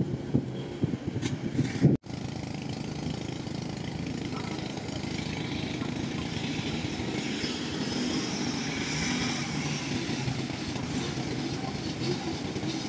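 Diesel engine of a tracked rice combine harvester running steadily as it drives across the field. For the first two seconds wind buffets the microphone, then the sound cuts abruptly to an even engine noise.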